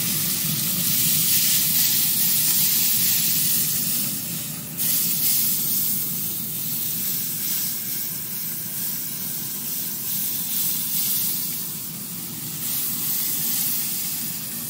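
Hand trigger spray bottle spritzing apple juice onto smoking pork butts in an open pellet grill: a run of hissing spritzes that swell and fade, one starting sharply about five seconds in.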